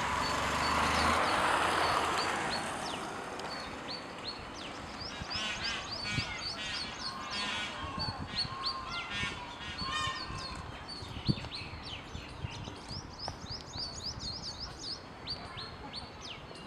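Birds chirping: many short high chirps throughout, with one bird giving runs of rapid repeated calls from about five to ten seconds in. A few sharp knocks, the loudest about eleven seconds in.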